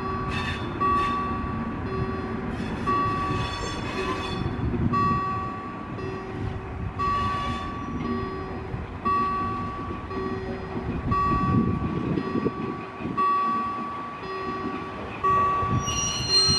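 V100-family diesel-hydraulic shunting locomotive rumbling as it creeps along, while an electronic warning beeper sounds about once a second. Near the end the wheels give a brief high squeal.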